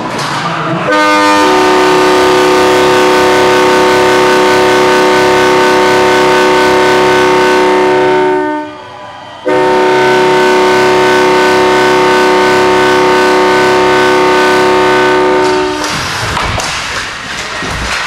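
Ice rink goal horn sounding a loud, steady multi-tone chord in two long blasts of about seven seconds each, with a short break between them, signalling a goal.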